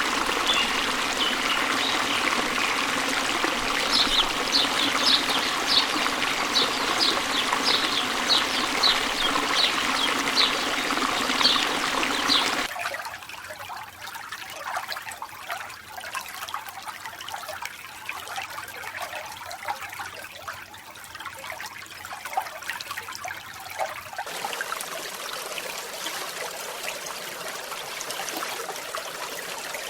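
Running water of a stream, an even rushing flow. It drops abruptly quieter about 13 seconds in and changes again near 24 seconds.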